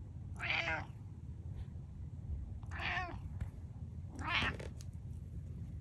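A domestic cat meowing three times in short calls, the second and third closer together.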